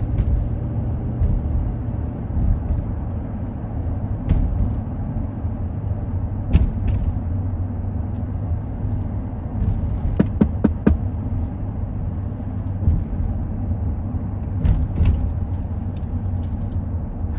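Ram pickup with a freshly rebuilt Hemi V8 being driven, heard from inside the cab as a steady low engine and road drone. Light jangling rattles and clicks come and go over it, with a cluster about ten seconds in.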